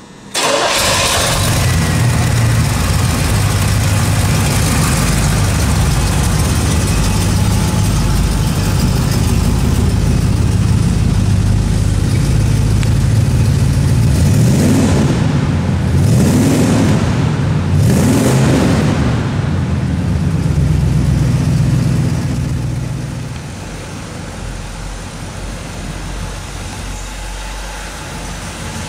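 Oldsmobile 455 V8 running at idle with an even, steady note. About halfway through, the throttle is blipped three times, each rev rising and falling back. Near the end the engine settles to a lower, quieter idle.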